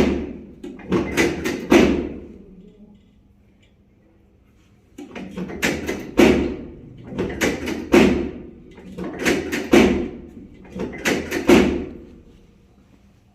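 Repeated knocks and thuds from a chiropractic treatment table, coming in groups of two or three. There is a pause of about three seconds a few seconds in, and then the knocks carry on at a steady pace.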